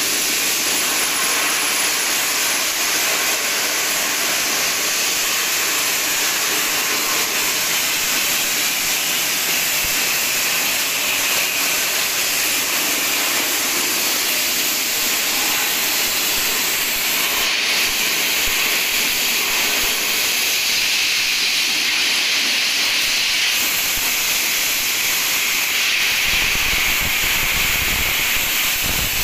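Abrasive blasting of steel girders: compressed air and grit hissing steadily from the blast nozzle. A low rumble joins near the end.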